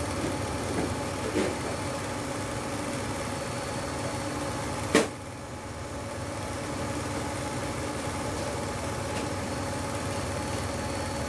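Steady drone of running kitchen equipment, with a low hum. A single sharp click comes about five seconds in.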